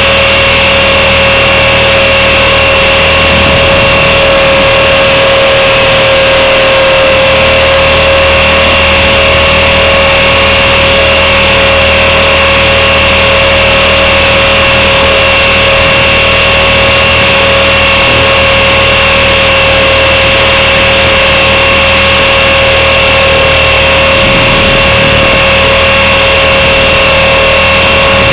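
Blade 400 electric RC helicopter in flight, heard from a camera mounted on it: the brushless motor, gears and rotor make a loud, steady high whine over a hum.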